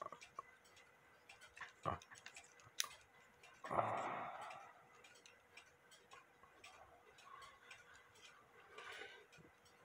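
Faint, irregular small metallic clicks from a brass Dutch clock movement as its gears and levers are worked by hand to test whether it will run, with a louder brushing handling noise about four seconds in.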